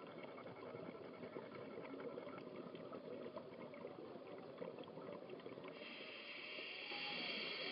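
Underwater ambient sound on a sea dive: a steady crackling, bubbling hiss. About six seconds in, a set of steady high tones joins it.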